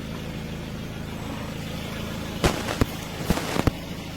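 Car engine idling steadily, with a quick cluster of about five sharp knocks in the second half.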